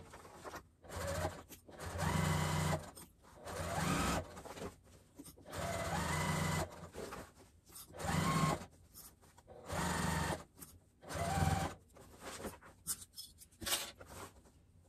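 Electric sewing machine top stitching through layered cotton and waterproof canvas in short stop-start runs, about seven bursts of roughly a second each, the motor rising in pitch as it picks up speed at each start.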